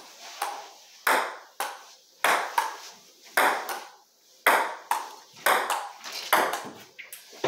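Table tennis rally: the ball clicks sharply back and forth, struck by paddles and bouncing on the table, about two hits a second.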